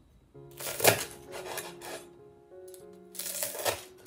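Knife crunching through the crisp fried batter of a king oyster mushroom cutlet on a wooden cutting board: a spell of crackling cuts from about half a second in, then another shorter one near the end. Soft background music plays underneath.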